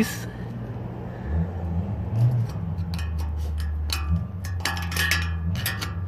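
Sharp metal taps and clinks of a screwdriver being knocked against a cut cast iron radiator valve fitting, driving out its sliced centerpiece: a few scattered taps, then a busy run of them in the second half. A steady low hum runs underneath.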